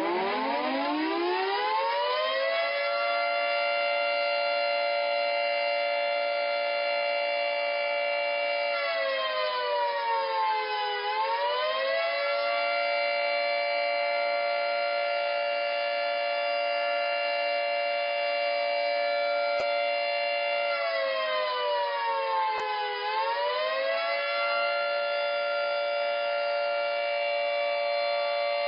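Civil-defence air-raid / tornado warning siren winding up in pitch to a loud, steady wail. Its pitch sags and climbs back twice, about a third of the way in and again about two-thirds through, then it holds steady.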